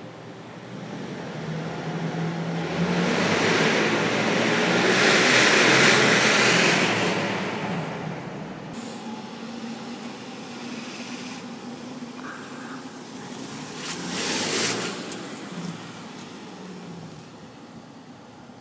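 Road vehicle noise swelling and fading as a car passes, loudest about five seconds in, with a second, shorter swell of a passing vehicle near the middle.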